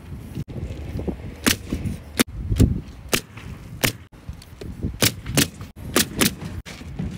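Pneumatic roofing nailer driving nails through asphalt shingles: about eight sharp shots at uneven spacing, some in quick pairs.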